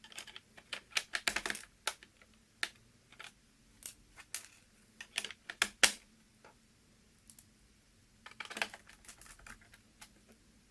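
Typing on a keyboard: irregular runs of key clicks. There is a quick flurry at the start, scattered single presses in the middle, and another short burst near the end.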